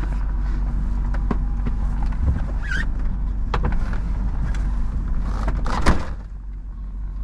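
Pickup truck idling with a steady low hum, with scattered knocks and handling clicks. A sharp thud about six seconds in, like a door shutting, is followed by a quieter, more muffled sound.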